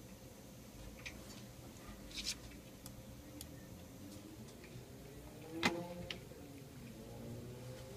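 A few faint, scattered clicks against quiet room tone, among them a computer mouse clicking a web page button; a sharper single click comes about five and a half seconds in.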